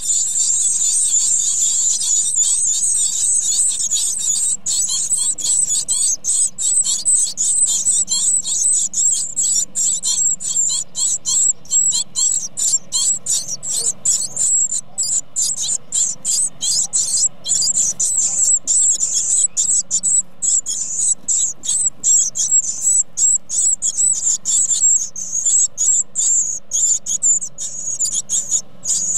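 Great tit nestlings begging for food at close range inside a wooden nest box while a parent feeds them: a dense, continuous chorus of high-pitched calls. After about five seconds it breaks into rapid, closely spaced notes.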